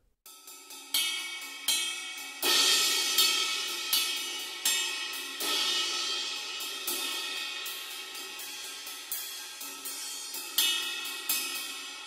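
Centent Emperor B20 bronze 20-inch ride cymbal, a standard full-volume cymbal, struck again and again with a drumstick. Its wash rings on between strokes, with a few strokes harder than the rest.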